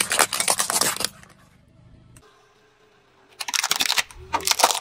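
Car tyre crushing brittle objects, a dense crackling and snapping of things breaking under the wheel. It comes in bursts: one in the first second, then after a quiet lull two more, about three and a half seconds in and near the end.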